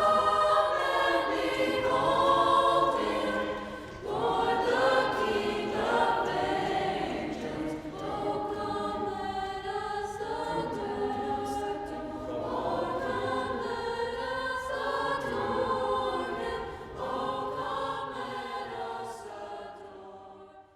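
A choir singing a Christmas hymn in several parts, with held notes, fading out near the end.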